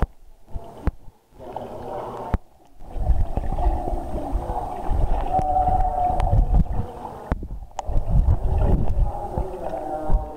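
Muffled water sounds picked up underwater: a swimmer's breaststroke churning and splashing the water close to the microphone, with gurgling. The sound drops out briefly a few times in the first three seconds, then runs louder.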